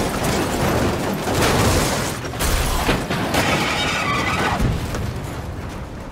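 Film crash sound effects: a car rolling over on the road and then scraping along under a truck trailer, a dense din of repeated heavy impacts and grinding metal. A high scraping screech comes in a little past the middle, and it all fades away at the end.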